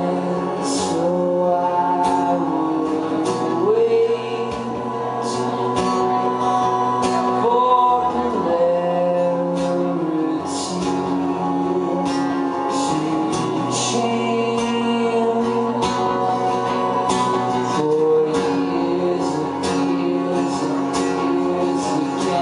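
Live solo performance: a man singing over a strummed acoustic guitar, with long held and sliding vocal notes.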